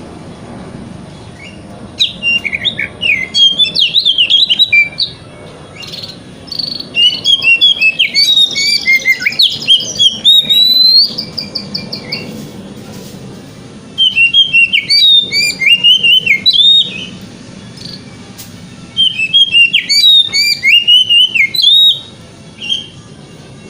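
Oriental magpie-robin singing in four bouts of loud, fast-changing whistled phrases, each a few seconds long with short pauses between. It mixes quick chattering runs with clear whistles, the 'wikplong' song style used as a lure to set other magpie-robins singing.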